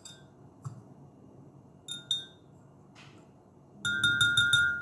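A metal spoon and then a small wire whisk clinking against a glass mug of milk while yeast is stirred in. A few separate taps each leave the glass ringing, then a quick run of clinks comes near the end as the whisk beats the milk.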